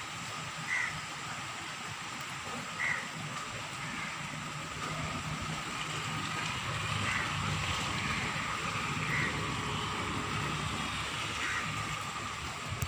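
Steady rainfall making an even hiss, with short bird calls about every two seconds.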